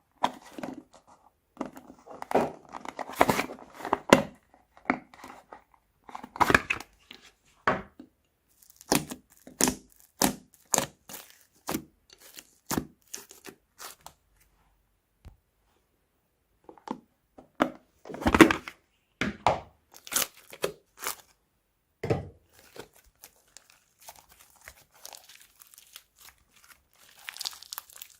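Crunchy slime being squeezed and pulled by hand, giving irregular sharp crackles and pops in clusters, with a pause of a couple of seconds about halfway through.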